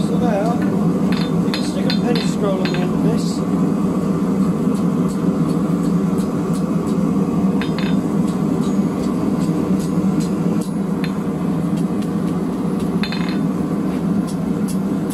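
Hand hammer striking a red-hot steel round bar on an anvil: a quick run of blows in the first three seconds, a few scattered strikes in the middle, and another cluster near the end, over a steady low roar.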